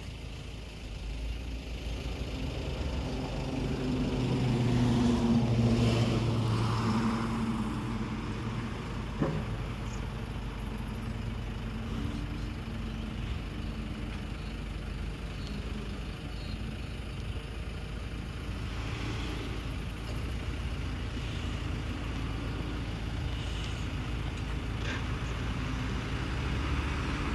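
Street traffic: cars passing, one loudest about five seconds in, over the engine of a garbage truck working along the kerb further up the road. A single sharp click about nine seconds in.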